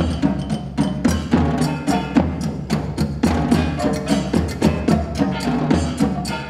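Instrumental music driven by rapid, dense percussion strikes, with pitched notes over a low pulsing bass.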